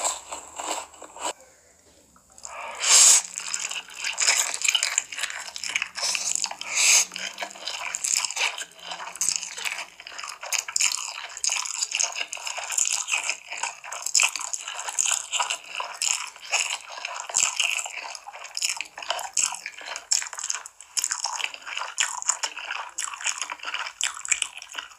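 Close-miked mouth sounds of someone slurping and chewing saucy noodles: a dense run of wet smacks and slurps that starts after a short pause about two seconds in.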